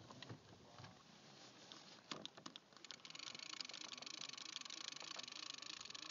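Fishing reel clicking, a few scattered clicks at first, then a fast, steady ticking from about halfway through as line is reeled or pulled off the reel.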